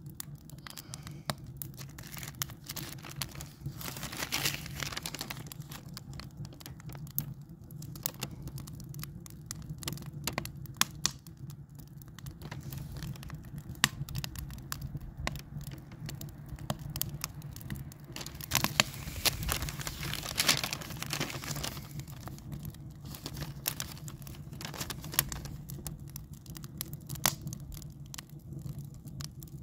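Paper instruction booklet rustling and crinkling in the hands as it is held up and its pages are turned, with scattered sharper rustles over a steady low hum.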